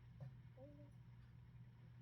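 Near silence: room tone with a steady low hum and a faint, brief pitched sound about half a second in.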